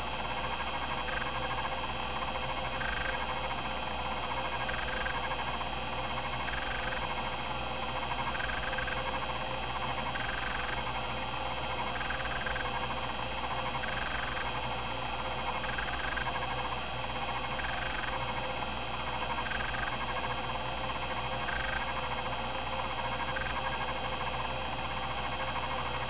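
Epson-Seiko HD-860 20 MB MFM hard drive spinning at 3600 RPM while its linear stepper rack-and-pinion actuator seeks continuously, making a steady mechanical whirr with a higher note that comes back about every two seconds.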